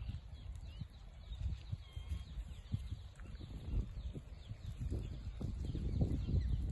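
Outdoor ambience: wind rumbling on the microphone, stronger near the end, with faint chirps of small birds in the trees.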